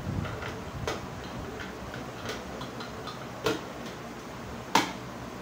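Plastic and metal parts of a Vitamax VM 502 food processor clicking and knocking as the clear bowl and a stainless steel grating disc are fitted onto the motor base. A few scattered clicks, with single louder knocks about three and a half seconds in and near the end.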